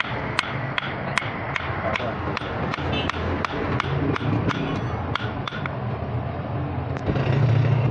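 Blacksmith's hammer striking metal in a steady rhythm, about two to three sharp blows a second, as the sickle blade is forged; the blows stop about two seconds before the end. A low steady hum runs underneath and gets louder near the end.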